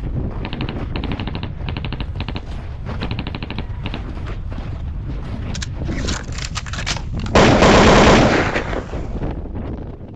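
Snowboard riding over hard snow: a steady low rumble from the board sliding, with quick runs of rapid clattering chatter over the first few seconds. About seven seconds in comes a loud scraping slide lasting about a second and a half, then it fades.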